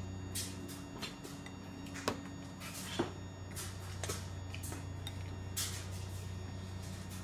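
Plastic spoon and fingers knocking and scraping against a ceramic bowl as a toddler feeds herself, in scattered soft clicks with two sharper knocks around two and three seconds in, over a steady low hum.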